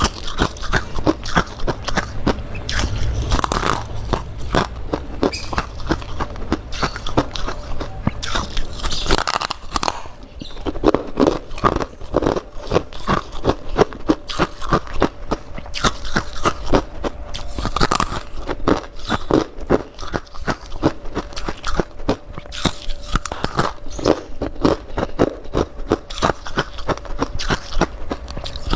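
Close-up chewing and biting of crunchy freezer frost (humidifier frost), a rapid, continuous run of sharp crunches.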